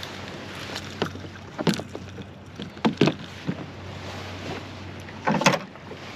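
Gear being handled inside a canoe hull: several sharp knocks and clatters a second or so apart, the loudest about five seconds in, over a steady low hum.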